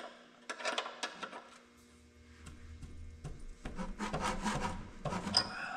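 Hand wrench clicking and scraping against metal under a truck, loosening the oil drain plug for an oil change. Scattered clicks come about half a second in, and a busier stretch of scraping follows from about midway.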